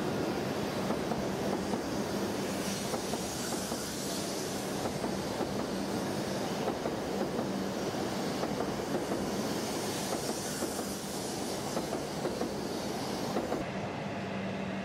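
N700-series Shinkansen bullet train running past on an elevated track: a steady rush of wheels on rail with a low steady hum underneath. The higher hiss swells and eases, and thins out near the end.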